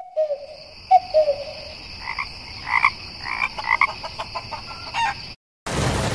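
Farmyard ambience: two loud frog croaks, then chickens clucking, over a steady high insect drone. It cuts off suddenly near the end and steady rain noise begins.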